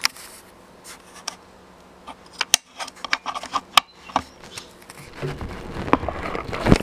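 Handling noise from a DSLR camera being moved and positioned by hand: scattered sharp clicks and knocks, then fabric rustling against the camera in the last couple of seconds, ending in a loud knock.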